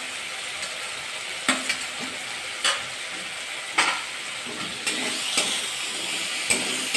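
Potato pieces and spice masala sizzling in oil in a metal kadai, while a metal spatula stirs them, knocking and scraping against the pan about once a second.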